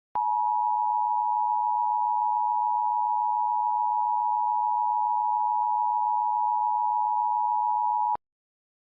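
Steady electronic two-pitch tone just under 1 kHz, held for about eight seconds and cutting off sharply: an Emergency Alert System attention signal.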